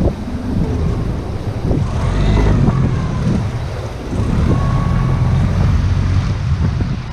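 Wind buffeting the microphone: a loud, uneven low rumble that swells and dips.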